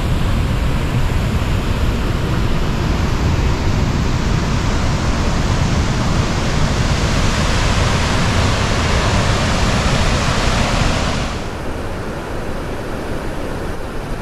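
Steelhead Falls and the Deschutes River rapids rushing as a steady, loud wash of water noise, with wind rumbling on the microphone. About eleven seconds in the sound drops sharply to a quieter, duller rush.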